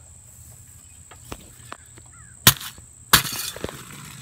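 A metal shovel blade strikes twice, sharply and about two-thirds of a second apart. The second chop is followed by a brief scraping rustle, and a few faint ticks come before.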